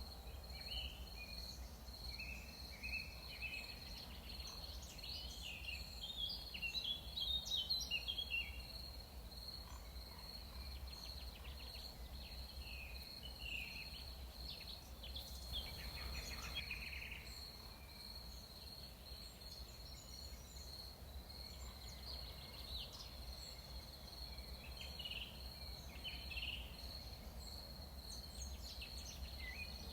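Tropical forest ambience: a steady high-pitched insect trill throughout, with scattered bird chirps and calls over it. The birds are busiest about six to nine seconds in, and a low even rumble lies underneath.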